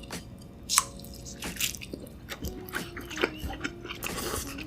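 A bite into a cube of cheese-filled Spam, then soft, wet chewing, with a sharp click just under a second in.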